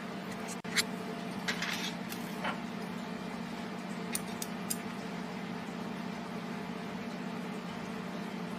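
A steady low hum from a running machine or appliance, with a few short, light clicks and taps in the first five seconds.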